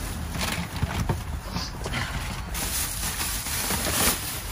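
Plastic trash bags and cardboard boxes rustling, with irregular knocks as items are shifted about in a dumpster.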